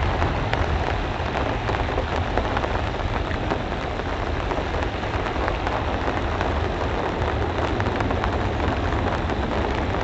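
Airbus A320's two jet engines at takeoff thrust as the airliner climbs out after lift-off: a steady, broad rushing noise with a deep rumble underneath.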